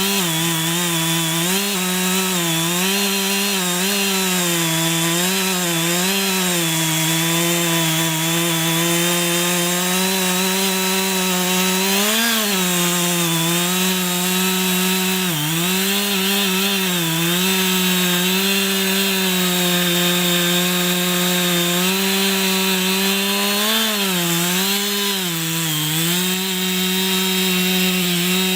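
Chainsaw engine running at high speed while cutting through a big log. Its pitch sags and recovers every few seconds as the chain bites into the wood under load.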